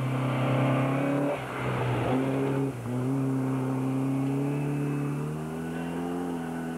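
Rally car engine pulling hard under acceleration on a gravel stage, its note breaking twice at gear changes in the first three seconds, then holding a steady, slowly rising pitch and fading a little as the car drives away.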